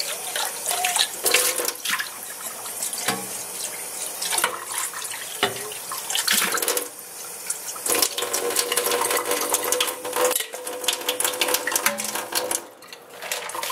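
Water running and splashing through a mesh strainer full of grated cassava (yuca), washing out and draining off its starchy water; the flow eases near the end.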